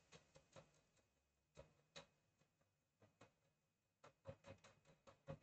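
Near silence with a dozen or so faint, scattered taps, more of them near the end: a pen stylus tapping on a drawing tablet as clock numerals are written.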